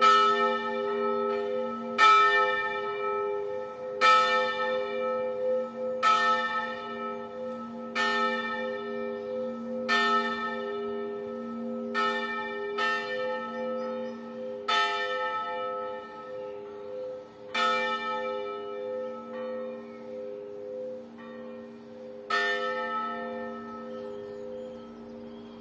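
Church bells, a set cast by Broili in 1921, swung in the Friulian 'a slancio' style: a strike about every two seconds over the bells' steady humming tones. The strikes grow fainter and more irregular through the second half as the ringing dies down.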